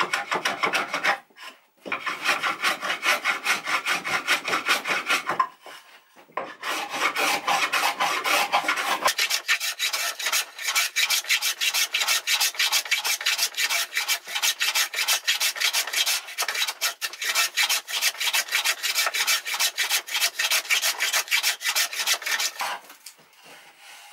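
Metal hand plane being pushed stroke after stroke along a thin sapele board held in a vise, shaving wood off to clean up one face. Two short pauses in the first six seconds, then the strokes run on almost without a break until near the end.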